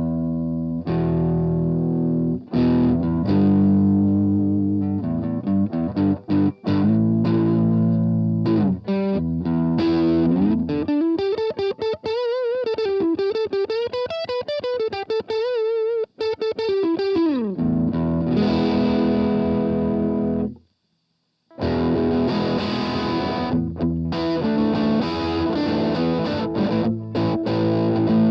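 Electric guitar, an Ibanez RG550, played through an MXR Custom Badass '78 Distortion pedal. Distorted chords and riffs give way to one long sustained note with wide vibrato. After a second of silence about three quarters of the way in, the chords return.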